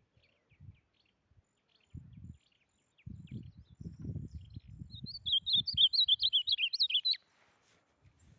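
A songbird that the locals call fofão sings a fast phrase of high, chirping notes about five seconds in, lasting about two seconds and stopping abruptly. Before it come a few faint, scattered chirps, and low bumps and rumbles sit underneath.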